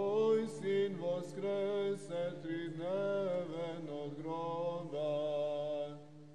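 Solo male voice singing Eastern Orthodox chant in long, gliding melismatic phrases over a steady held low drone, fading near the end.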